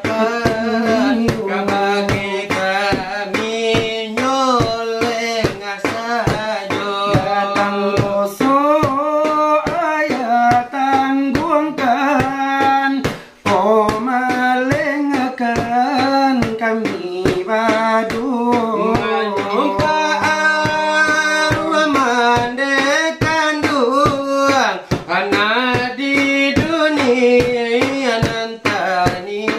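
Salawat dulang: Minangkabau devotional singing in a wavering melodic line over a steady beat tapped by hand on a metal dulang tray, about three taps a second.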